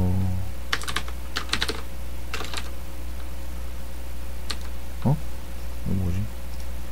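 Computer keyboard typing: three quick runs of key clicks in the first three seconds, then a single keystroke. Two short sounds from a person's voice near the end, the first falling in pitch.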